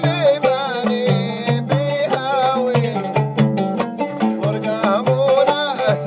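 Live Arabic folk music: an oud plucked together with a hand drum beaten in a steady rhythm, and a man singing a wavering melody over them.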